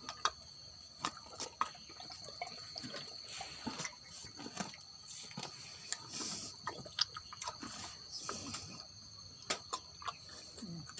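Liquid splashing and dripping in a few short spurts, with scattered small knocks, as a boiled-leaf herbal remedy is given to a sick cow.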